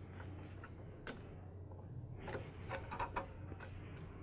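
Faint clicks and rustling of wires being pressed down into the plastic handle housing of a DeWalt DW718 miter saw, with a single click about a second in and a quick run of sharper clicks between two and three seconds in, over a low steady hum.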